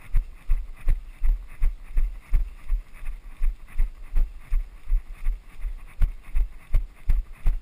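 Running footsteps on a dirt forest trail: a steady rhythm of heavy low thuds, close to three a second.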